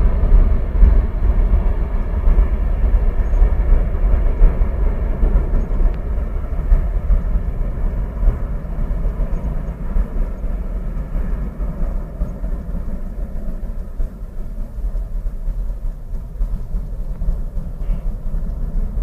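Four turbofan engines of a C-17 Globemaster III transport aircraft: a steady, heavy low rumble with a faint whine above it, slowly fading.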